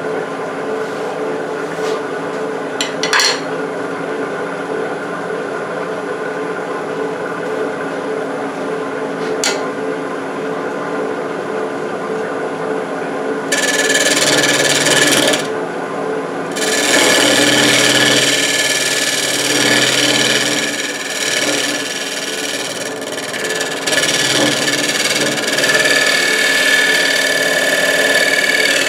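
Wood lathe spinning an epoxy-coated wooden urn at about 800 RPM, a steady hum. About halfway in, a skew chisel held flat as a scraper starts cutting at the base, a coarse scraping that comes and goes as it takes the epoxy coating back to bare wood.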